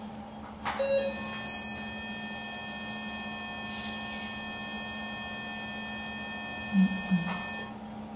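Steady electrical hum with several high, thin whining tones, a short beep about a second in and a few soft knocks near the end.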